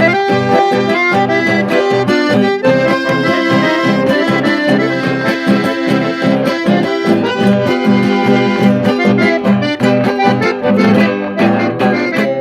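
Accordion-led music playing with a steady, regular beat.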